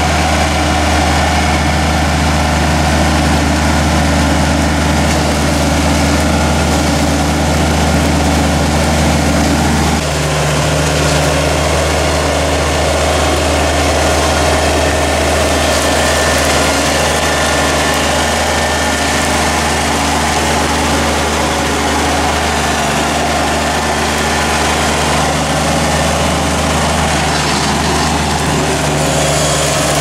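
Kubota BX compact tractor's diesel engine running steadily as it moves through brush, a low, even hum whose tone shifts about ten seconds in.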